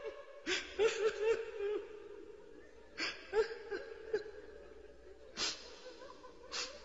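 A man sobbing: wavering choked cries and four sharp catching breaths, with pauses between.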